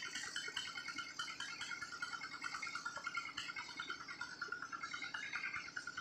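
A dense chorus of insects: rapid, buzzy chirps repeating at a steady high pitch without a break.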